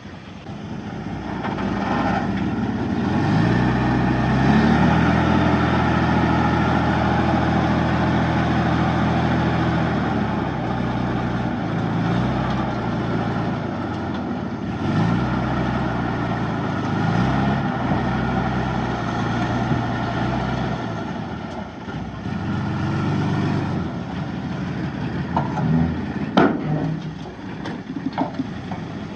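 Bulldozer diesel engine revving up and working under load, its pitch dropping and climbing again several times as the load changes. Near the end come a few sharp metal clanks.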